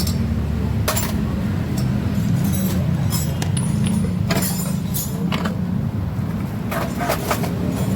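Metal clinks and clatters of hand tools and scooter parts being handled during disassembly, with sharp knocks about a second in and several more between four and a half and seven and a half seconds, over a steady low hum.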